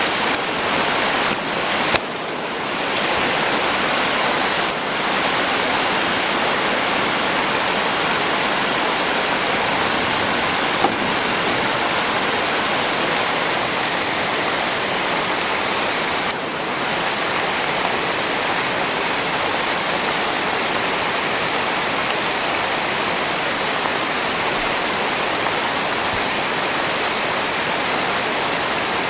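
Heavy rain pouring down steadily: a dense, even hiss of rain, with a few brief momentary dips.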